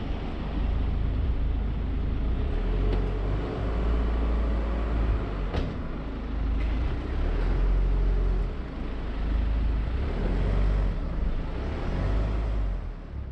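A car driving, with a steady low rumble of road and engine noise that swells and eases a little and a few faint knocks.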